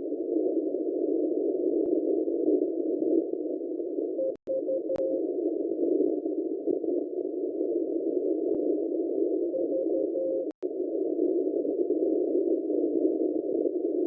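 Shortwave receiver in CW mode: hiss through a narrow filter, with a faint, unidentified Morse code tone keying a short group of dots and dashes twice, about six seconds apart. The audio drops out for an instant twice.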